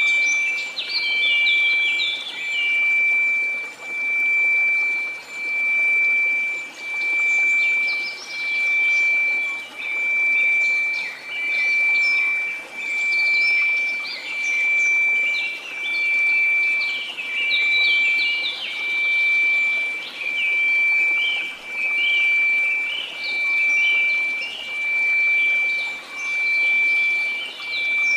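Synthetic 2334 Hz pure tone held steady, its loudness swelling and fading about every second and a half, over a bed of hiss. Many short high chirps and twitters run over it throughout.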